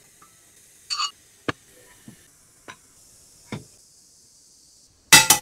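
Light knocks and clicks, one every second or so, as food and a plastic tub are handled at a nonstick frying pan, over a faint steady hiss. A louder, brief clatter comes near the end.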